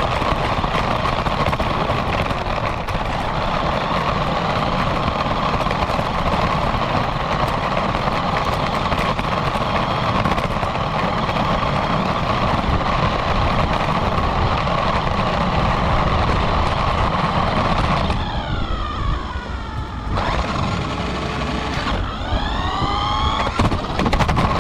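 RC car's motor and drivetrain running at a steady speed with road noise, heard from a camera mounted on the car. About 18 s in and again about 22 s in, the motor's pitch falls and climbs again as the car slows and speeds up.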